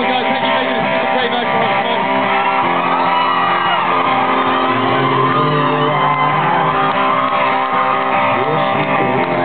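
Live rock band playing loudly through a concert PA, with electric guitar to the fore and voices singing and shouting over the music.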